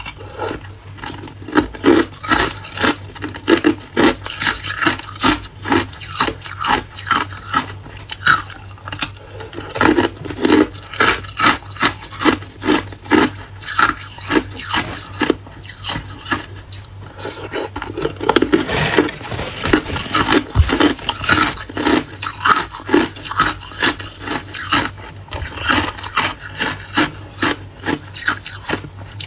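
Hard clear ice cubes being bitten and chewed, a steady run of sharp crunches, about two or three a second.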